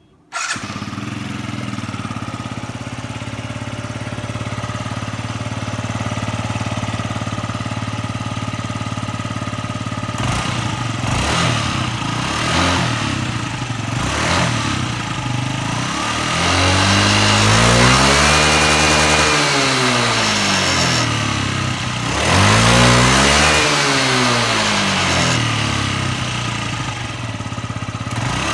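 Yamaha Jog ZR 50 cc scooter engine starting about half a second in, after a repair for an abnormal engine noise. It idles steadily, gets a few short blips of throttle, then is revved up and back down twice near the end.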